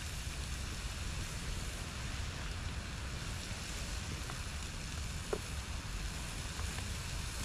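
Wind rumbling on the microphone over a steady outdoor hiss, with a faint click about five seconds in.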